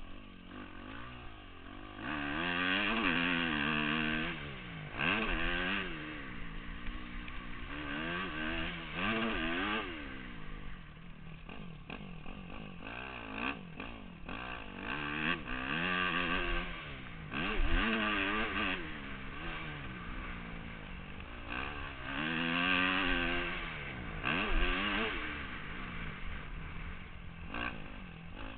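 Motorcycle engine revving up and falling back over and over, its pitch climbing and dropping every couple of seconds as the bike accelerates and shifts or backs off, with several loud bursts of throttle.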